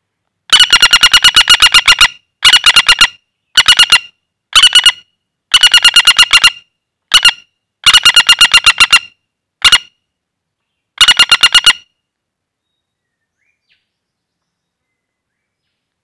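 Flameback woodpecker (pelatuk bawang) held in the hand, giving a string of loud rattling calls: about nine rapid rattles of evenly spaced sharp notes, some long and some short. It falls silent for the last few seconds.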